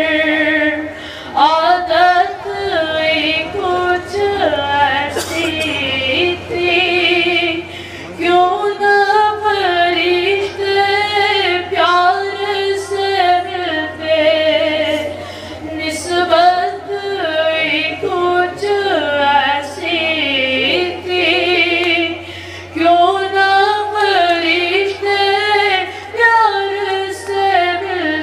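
A boy's high voice singing an Urdu naat solo and unaccompanied through a microphone, in long ornamented phrases with vibrato and short breath pauses. A steady low hum from the sound system runs underneath.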